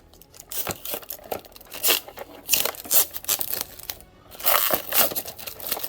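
Irregular crinkling and crackling of plastic packaging being handled as action figures are taken out of their box, in loud spells about two and a half seconds in and again near the end.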